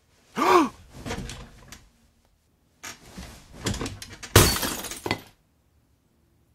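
Sound effect of something breakable smashing: a clattering run of impacts with the loudest crash about four and a half seconds in. Before it comes a short cry that rises and falls in pitch.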